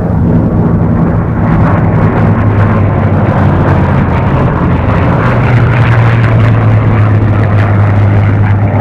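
Piston engines of a P-51D Mustang (Merlin V-12) and a twin-engined P-38 Lightning (Allison V-12s) flying past in close formation: a loud, steady drone that drops in pitch about five seconds in as the aircraft go by.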